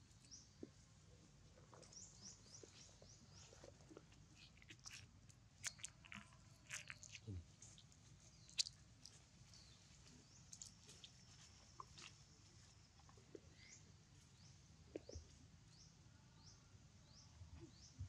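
Near silence in forest undergrowth. Faint, short high chirps falling in pitch repeat in runs near the start and near the end. Scattered small clicks and crunches, mostly in the middle, come from a young macaque handling and nibbling at twigs and leaves.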